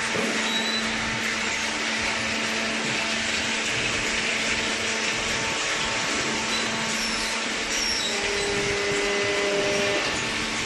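Hydraulic waste paper baler running: a steady whirring machine noise with a constant low hum, and a brief extra tone joining about eight seconds in.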